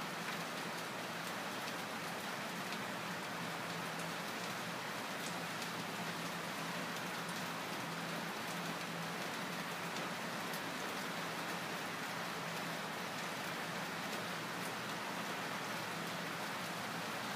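Steady, even hiss with a faint low hum underneath and scattered faint ticks.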